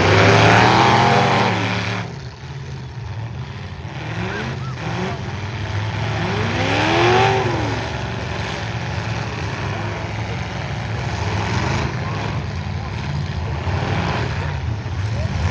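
Several demolition-derby stock truck engines running together, with a steady low drone. One is revved up and back down twice, a short rev about four seconds in and a bigger one around seven seconds.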